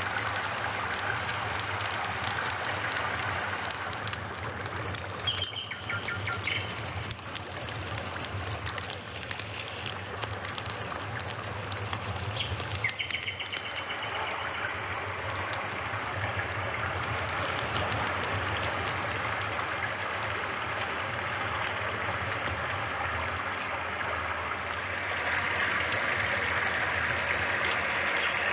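Steady rush of running water, with a bird chirping in short trills twice, about 6 and 13 seconds in.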